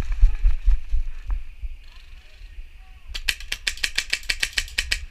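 Airsoft gun firing a burst on full auto, a fast even string of sharp cracks at about eight shots a second, lasting about two seconds in the second half. A low rumble on the microphone comes first.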